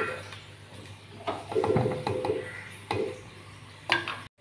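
A ladle stirring thick curry gravy in an earthenware clay pot. It knocks and scrapes against the pot's side several times, with a cluster of strokes in the middle and a last knock near the end.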